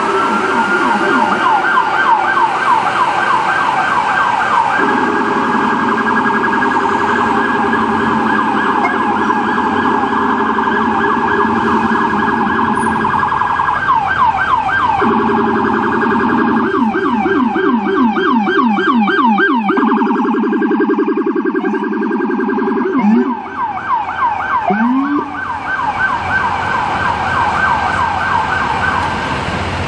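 Electronic sirens of arriving emergency vehicles, several overlapping on a fast yelp with a second, lower-pitched siren underneath. A little past the middle the sirens break off briefly, with a couple of short rising chirps, before the yelp resumes.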